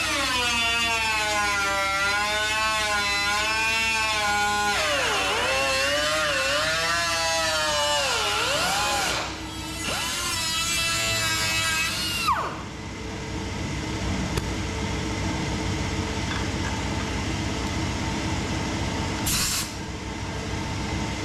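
Power tool running at high speed with a whine whose pitch sags and recovers several times as it is loaded. About halfway through the whine cuts off and a rougher steady noise continues, with a brief hiss near the end.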